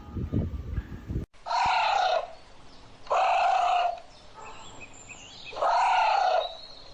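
About a second of low thumping, cut off, then a bird calling three times. Each call lasts just under a second, with an arching pitch, and there are gaps of about two seconds between them.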